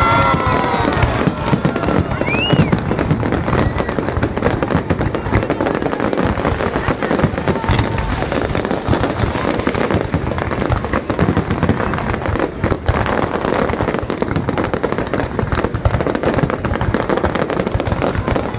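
Fireworks display going off continuously, a dense unbroken crackle of many small bangs and pops.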